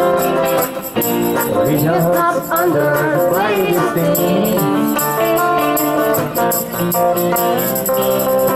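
Live band music: an electric guitar and an acoustic guitar playing a song, with notes that bend and waver in the middle.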